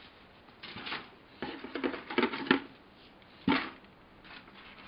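Model kit parts in clear plastic bags being handled inside a cardboard kit box: several short bursts of rustling and crinkling.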